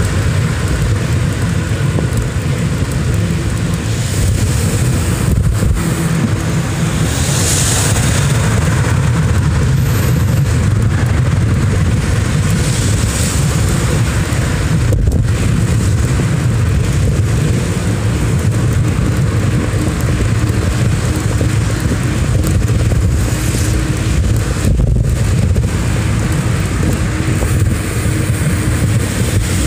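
Steady low rumble of riding through city traffic: road and wind noise on a phone's microphone, with the sound of cars driving alongside.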